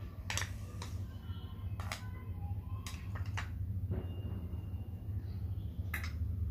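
Metal spoon clinking and scraping against a metal serving bowl and plate as gravy is ladled onto rice: several separate sharp clinks, some leaving a brief ring, over a steady low hum.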